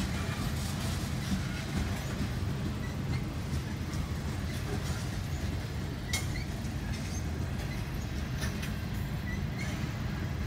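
Freight train of tank cars and other freight cars rolling past a grade crossing, a steady rumble of wheels on the rails heard from inside a car, with scattered clicks and one sharper click about six seconds in.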